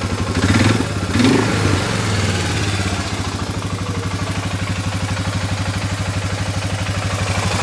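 Suzuki Vinson 500 Quadrunner ATV's 500 cc single-cylinder four-stroke engine idling with an even pulse, with a couple of brief louder moments in the first two seconds.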